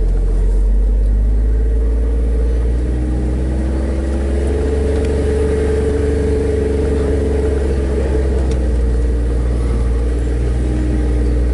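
Jeep Wrangler engine running steadily with a heavy low rumble, its pitch lifting slightly about four seconds in and then holding.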